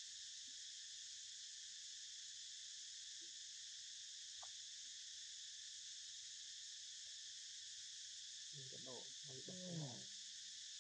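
Steady, faint high-pitched drone of an insect chorus in the forest. A brief faint vocal sound rises over it about nine seconds in.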